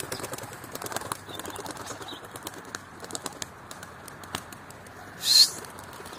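Pigeon wings flapping, with scattered faint wing clicks, then a short sharp whistle rising in pitch about five seconds in.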